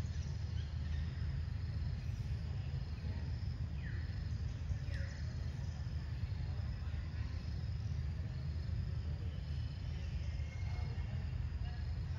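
Outdoor ambience of steadily droning insects over a steady low rumble, with two short falling chirps about four and five seconds in.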